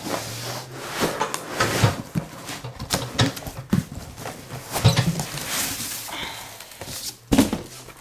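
Cardboard box being handled and pulled open: scraping and rustling of cardboard, broken by a series of irregular knocks and thumps as the box is shifted.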